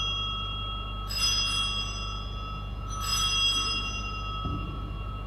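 Altar bell rung at the elevation of the chalice after the consecration at Mass. It is struck twice about two seconds apart, and each strike rings on with several clear, bright tones.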